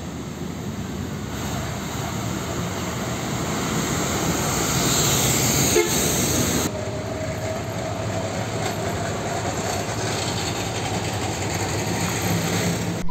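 Heavy diesel fuel tanker trucks running on the road: a steady engine and road rumble. The noise changes abruptly about halfway through, and a faint steady whine runs through the second half.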